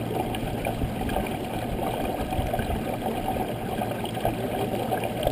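Small waves lapping and gurgling against the side of a canoe in a steady, muffled wash, with a few light slaps against the hull.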